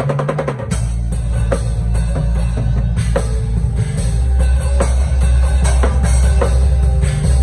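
Drum kit with cymbals played in a groove over backing music that carries a deep, sustained bass line. A fast run of strokes gives way to more spaced-out hits right at the start.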